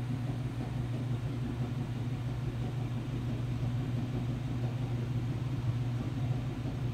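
Steady low hum with no change in pitch or level.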